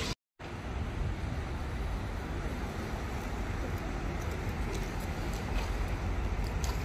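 Wind rumbling on the microphone over a steady hiss of outdoor street ambience, with a few faint ticks near the end. It starts after a brief dropout to silence at the very beginning.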